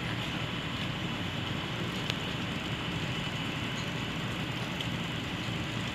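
Steady low rumble and hiss of outdoor background noise, with a faint click about two seconds in.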